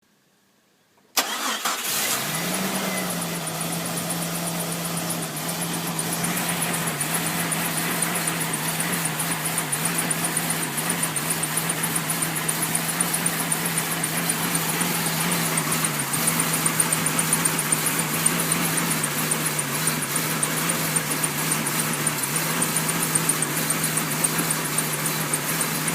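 1999 Jeep Cherokee XJ engine starting cold about a second in, flaring briefly and then settling into a rough idle, missing, with the rpm fluctuating. A squeaky fan belt chirps steadily over it.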